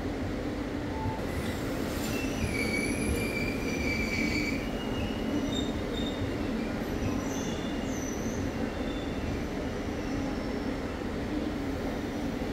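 Passenger train coaches rolling with a steady rumble and hum, while the wheels squeal against the rails. The high squeals start about a second and a half in, are strongest for the next few seconds, then come and go briefly until near the end.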